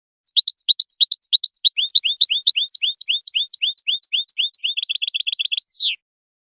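European goldfinch song: a fast run of repeated chirping notes that ends in a quick trill and a single falling note.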